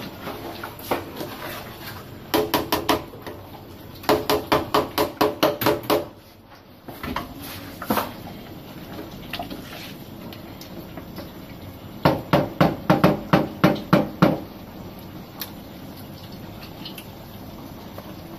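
Wooden spoon stirring and knocking against the side of an aluminium soup pot: three quick runs of clattering strikes, about five a second, with a slight metallic ring.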